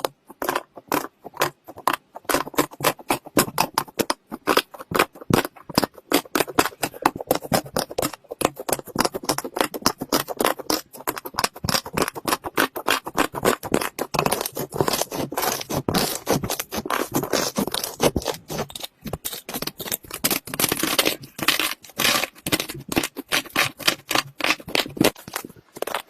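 Slime being squeezed and worked by hand, giving a dense, irregular run of crackling and popping clicks.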